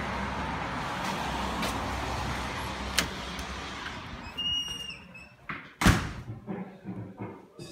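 Door sounds over a steady rushing background noise: a sharp click about three seconds in, a short high squeak about a second later, then a loud bang of a door shutting about six seconds in, followed by a few small knocks.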